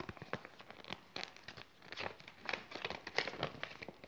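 A folded paper leaflet crinkling as it is handled, in quick irregular small crackles.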